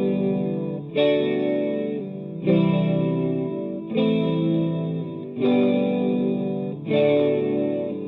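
Electric guitar played through a DigiTech GNX3 multi-effects patch, striking sustained chords about every one and a half seconds, each one ringing out and fading before the next.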